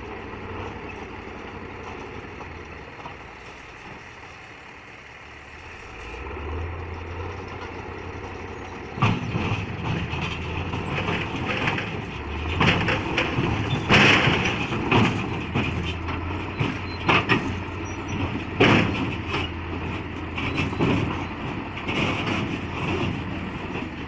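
Large crawler bulldozer's diesel engine working hard, louder from about six seconds in, as the machine climbs a ramp onto a lowboy trailer. From about nine seconds on, its steel tracks clank, bang and squeal against the ramp and trailer deck again and again.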